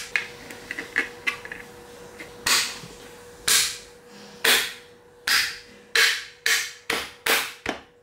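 A fist striking 3D-printed PLA turntable segments, knocking their tight press-fit dovetail joints into place. A series of sharp knocks begins a couple of seconds in, about one a second at first, then quickening to two or three a second.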